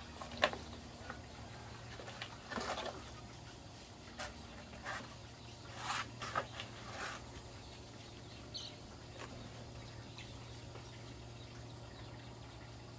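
Scattered light knocks and clatter over a low steady hum, with a short bird chirp about eight and a half seconds in.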